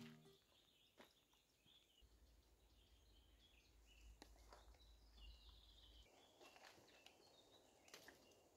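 Near silence: faint outdoor forest ambience with a few soft, high bird chirps and an occasional faint click.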